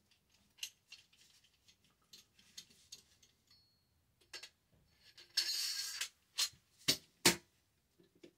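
Metal shotgun parts handled during reassembly of a Remington 870 Tac-14: light scattered clicks, a scraping slide of metal on metal lasting about a second just past halfway as the bolt and action bars go into the receiver, then a few sharper clicks near the end.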